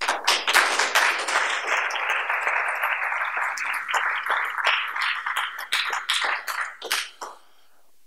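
Audience applause, many people clapping at once. It thins to a few scattered claps and stops about seven seconds in.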